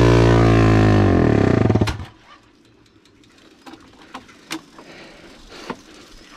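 Honda CB motorcycle engine running hard under load on a steep dirt climb, then falling in pitch about a second in as it bogs down and stalls just before two seconds in. After that only a few light knocks and scrapes from the stopped bike and the rider's feet.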